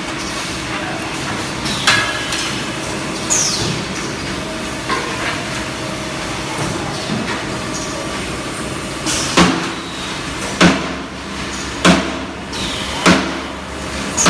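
Cement roof tile pressing machines running with a steady machine hum and sharp metallic clanks. A few clanks come scattered early on, then a regular run of strong clanks about every second and a quarter in the second half, as the press cycles work.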